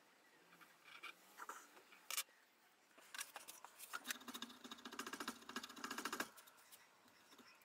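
A small metal tool scraping and filing in quick short strokes inside the slot of a wooden knife-handle block clamped in a vise, clearing the channel for a hidden tang. A few light taps come first, then a dense run of strokes about halfway through that lasts about two seconds.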